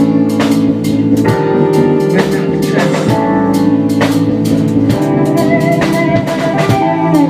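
Song with a drum kit playing a steady beat over sustained instrumental notes, with no singing.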